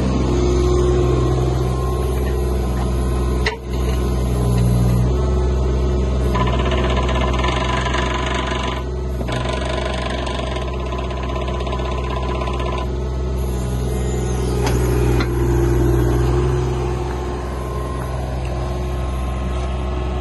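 Hitachi ZX26U mini excavator's diesel engine running steadily. A higher whine joins for several seconds in the middle.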